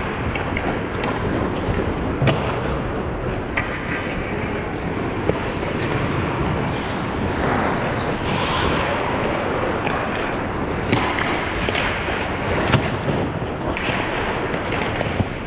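Ice hockey play: a steady hiss of skates scraping the ice, broken by several sharp clacks of sticks and puck.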